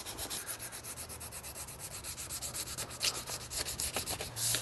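Sandpaper rubbed back and forth by hand over dried body filler along the edge of a plastic car bumper: a quick, even rasping at about six strokes a second, with a few harder strokes near the end.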